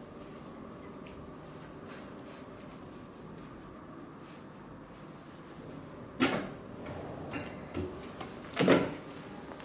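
Faint steady hum from the long-arm heavy-duty sewing machine's motor. About six seconds in come a few short, loud scraping bursts as heavy tent fabric is worked through the machine, the loudest about a second before the end.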